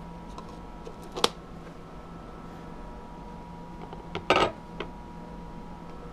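Household handling noises over a steady low hum: a sharp click about a second in, then a short clatter, like hard objects knocked together, about four seconds in.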